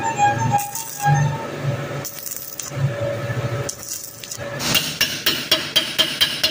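Stick-welding arc on square hollow steel tube, crackling in short bursts of about half a second as the corner joint is tacked. From about four and a half seconds in, a hammer strikes the steel weld in quick metallic clinks, about three a second, knocking the slag off the bead.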